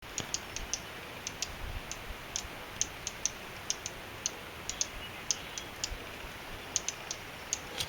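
Dark-eyed juncos giving a rapid, irregular series of sharp, high chip notes, a few a second, the alarm chips of a pair that seem concerned about a nest.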